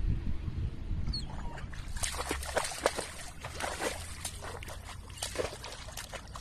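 A dog wading and stepping in shallow lake water, making a run of irregular splashes and sloshes.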